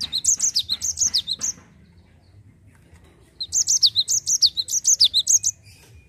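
Cinereous tit (gelatik batu) singing its rapid rolling song: two runs of quick, repeated high notes, each note sliding down in pitch. The second run starts about halfway through.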